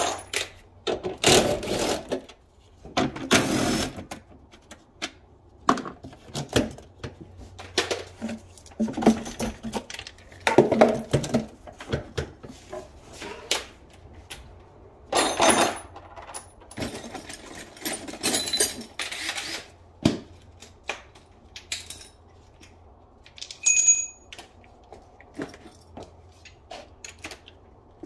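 Hand tools and metal parts clinking and clattering in a car's engine bay: irregular sharp clicks and clanks mixed with several longer scraping or rustling noises, and one short ringing metallic clink late on. A low steady hum runs underneath.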